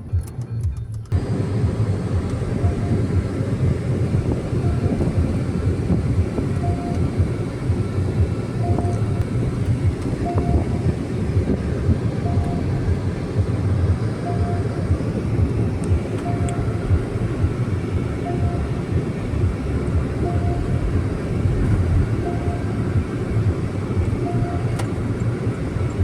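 Porsche Cayenne six-cylinder engine running steadily with a low rumble, starting about a second in. A faint short beep repeats about every two seconds over it.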